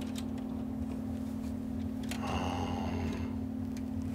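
Bundles of thin wires being handled and sorted inside a metal power-supply chassis, with a few faint clicks and rustles, over a steady low electrical hum.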